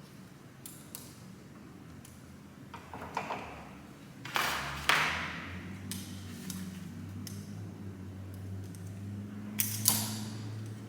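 Hand work on metal engine parts: scattered clicks and clinks of tools and parts, with a short hissing burst about four seconds in, then a low steady hum through the second half.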